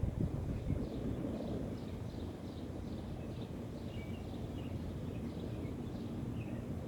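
Outdoor ambience: small birds chirping in quick, short, repeated notes over a steady low rumble.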